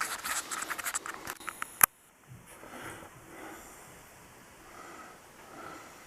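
Dense scratching and rustling for about two seconds, ending in one sharp click, then faint quiet sounds in a small room.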